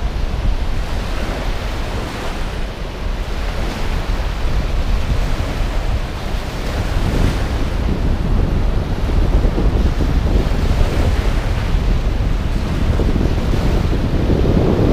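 Baltic Sea waves washing up on a sandy shore, with wind buffeting the microphone in a steady low rumble.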